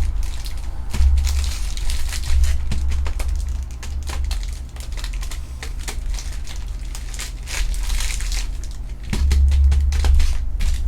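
Trading card packs and their foil and plastic wrappers being handled and opened: irregular crinkling with many sharp clicks and snaps, over a low rumble.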